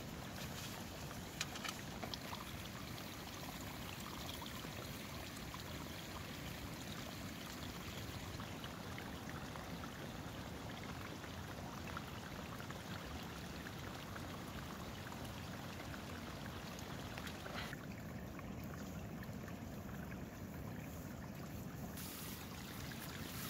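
A stream running steadily, with a couple of faint knocks near the start.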